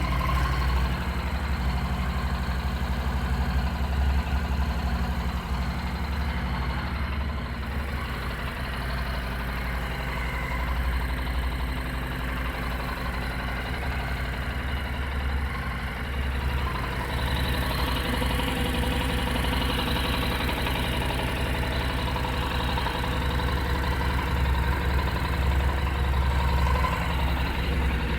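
Honda NC700S's 670 cc parallel-twin engine idling steadily through its stock exhaust.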